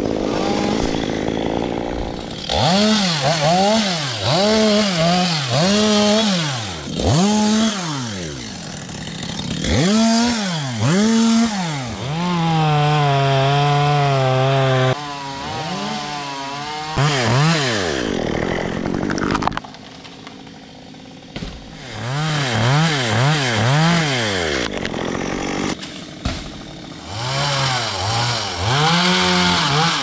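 Stihl two-stroke chainsaw cutting eucalyptus limbs, its engine revved up and down in quick repeated surges. It is held at one steady pitch for a few seconds near the middle, drops to idle about two-thirds of the way through, then revs up and down again.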